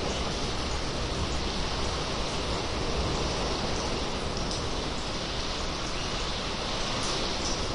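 Steady washing of sea water inside a sea cave, echoing off the rock walls, with a few faint high drips or splashes about halfway through and near the end.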